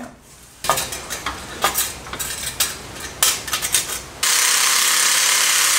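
Stainless steel exhaust tubing clanking and clinking, a run of sharp metal knocks as the sections are handled and fitted. About four seconds in, a loud steady hiss starts and cuts off abruptly a second and a half later.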